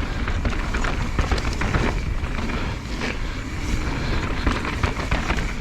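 Mountain bike rolling fast over a rough trail: a steady rush of wind on the microphone with tyre noise and many small rattles and knocks from the bike.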